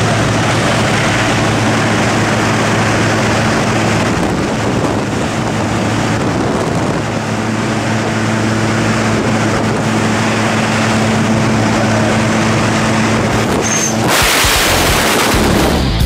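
Propeller aircraft engine droning steadily, heard inside the cabin during the climb to altitude. Near the end a louder rushing noise takes over.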